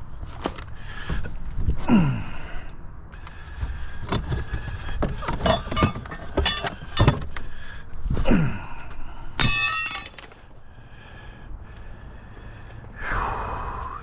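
Irregular knocks, thuds and scrapes of hands-on repair work, with a short buzzy rattle about nine and a half seconds in and quieter handling after that.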